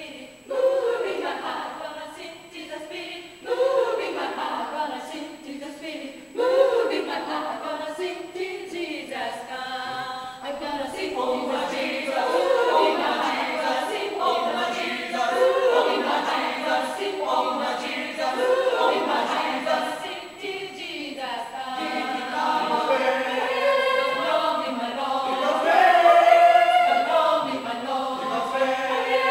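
Mixed gospel choir of men and women singing a cappella. The first few phrases start abruptly, then the singing becomes fuller and continuous and swells near the end.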